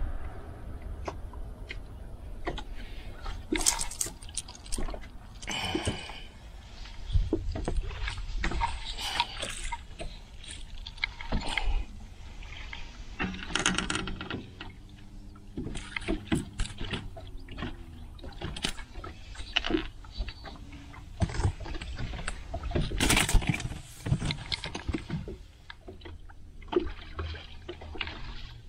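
Water splashing and lapping around a small fishing boat, with irregular knocks and clicks on the hull and deck and a constant low rumble underneath.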